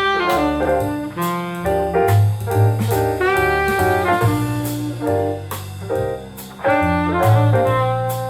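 Jazz music: horns playing the melody over a bass line and drums, played back through bookshelf speakers.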